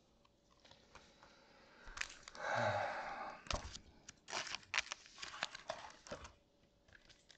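A small plastic card-pack wrapper being torn open and crinkled by hand. A rustle comes about two seconds in, then a run of sharp crackles for about three seconds, which stops a second before the end.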